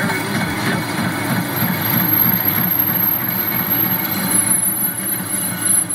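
Metal lathe taking a heavy roughing cut, the tool hogging about an eighth of an inch at a time off the cast flange of a Volvo portal-axle stub axle: a steady grinding cut with an uneven low rumble as steel chips curl off.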